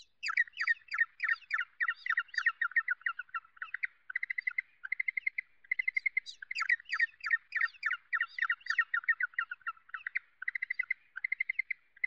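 A bird chirping in quick, continuous runs of high notes, several a second, broken by a few short, even trills.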